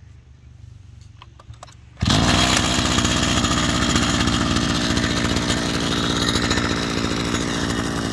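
The 35cc two-stroke engine of a Komatsu Zenoah BC3510 brush cutter starts easily. After a couple of quiet seconds it fires abruptly about two seconds in and keeps running steadily, loud at first and easing slightly.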